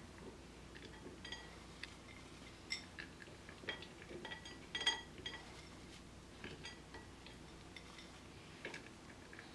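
Faint, scattered light clinks and taps of glass bowls being handled while shredded cheese is sprinkled by hand, a few with a short glassy ring; the loudest come about three and five seconds in.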